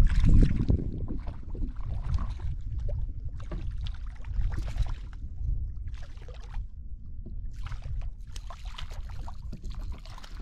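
Wind rumbling on the microphone, loudest in the first second, with a run of short water splashes from a hooked trout thrashing at the surface beside a kayak.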